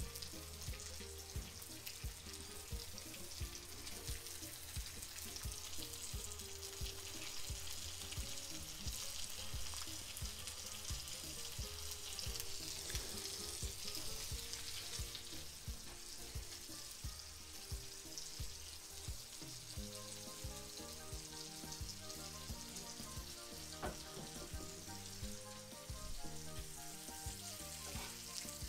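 Pike perch fillets frying in a cast-iron pan, sizzling steadily. Background music with a steady beat plays underneath.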